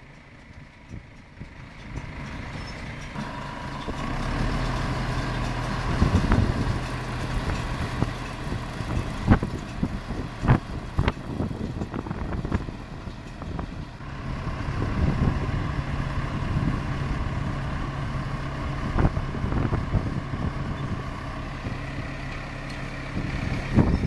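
Tractor engine running with a McHale Fusion 2 baler-wrapper behind it. The engine sound builds in over the first few seconds, and a series of loud, sharp knocks and clunks comes from the machine partway through.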